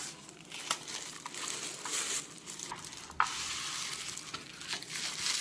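Packaging being handled while unboxing a keyboard: a crinkling, crackling rustle with scattered small clicks and one sharp click about three seconds in.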